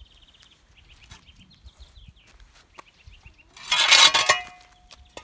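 A hen gives a loud, harsh squawk of under a second, about four seconds in, after faint high chirping.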